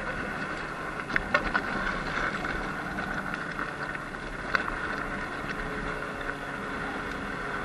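Sur-Ron X Light Bee electric dirt bike riding over a rough gravel track: a steady electric motor and drivetrain whine over wind and tyre noise, with a few sharp clicks of stones or rattling parts about a second in and again around four and a half seconds.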